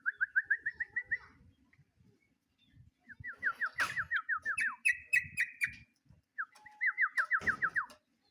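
Yellow-vented bulbul (trucuk) singing three rapid trills of repeated rising notes, a short one at the start, then a longer one, then a third near the end: a vigorous song used to challenge a rival. A few sharp clicks and low knocks sound under it.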